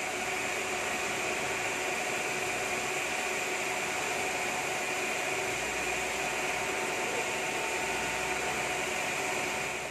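Steady machine noise of sawmill machinery running: an even hiss with a faint steady hum through it.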